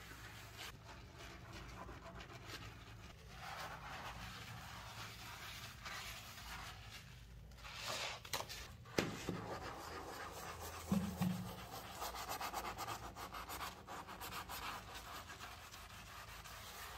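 Green scouring sponge scrubbing a foamy bathroom sink: quick, rhythmic rubbing and scratching strokes, with a couple of sharper knocks near the middle.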